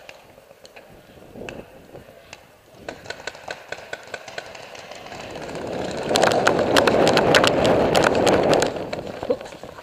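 A paintball player running across grass and dirt: a loud rush of quick footfalls and rattling gear for about three seconds, starting about six seconds in. Before it come scattered sharp pops, paintball markers firing.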